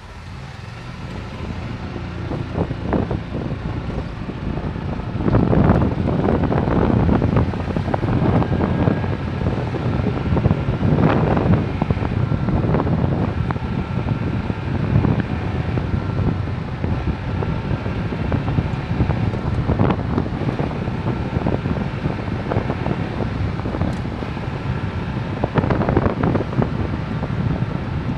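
Wind buffeting the microphone over the low rumble of an open golf cart driving down a street. It builds over the first few seconds as the cart gathers speed, then stays steady with gusty swells.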